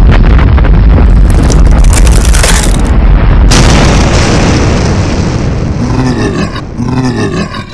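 Cartoon sound effect of a heavy rumbling boom as a giant mole-like creature bursts up through the ground, with a sudden crash about three and a half seconds in. The rumble then fades out under a low growling voice near the end.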